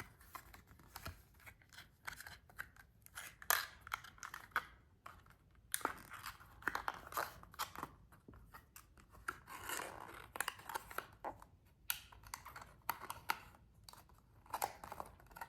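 A miniature flattened cardboard box being folded and assembled by hand: irregular scratchy rubbing and sharp clicks as the card is creased and its flaps tucked in.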